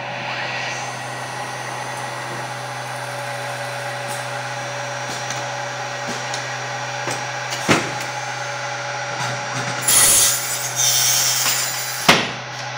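Mach3-controlled CNC machine running with a steady hum. A sharp knock just past halfway, two loud hissing bursts about ten seconds in, and another sharp knock near the end.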